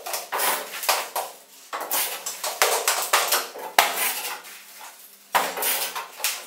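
Light metallic clinking and rattling in irregular bursts, several a second at times, with a lull about five seconds in.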